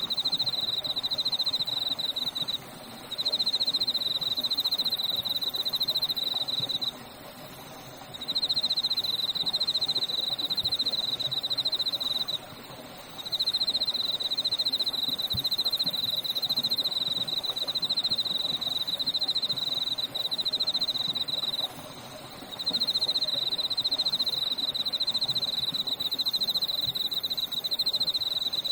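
A night insect trilling in long, rapidly pulsed high-pitched bouts of several seconds, with short pauses between them, over a steady low murmur of a stream.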